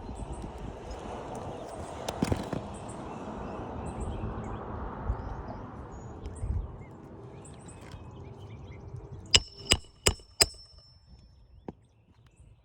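Hammer striking a metal roof snake nailing tool four times in quick succession with a metallic ring, driving a roofing nail under the shingle above. Before that, scraping and rustling as the tool is worked under the shingles, with a single knock about two seconds in.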